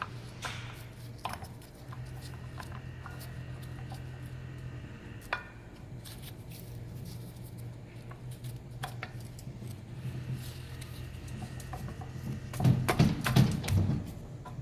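Light metallic clicks and taps of brake pads and pad shims being handled and fitted into a brake caliper, ending in a cluster of louder knocks as a pad is pushed in against caliper pistons that are not fully retracted. A steady low hum runs underneath.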